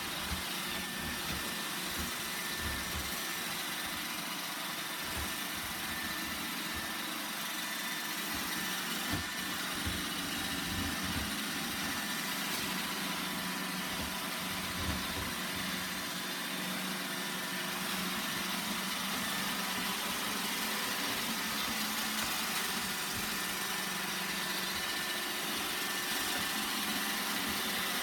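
Roomba 960 robot vacuum running: a steady motor whir and brush hiss, with occasional soft low knocks.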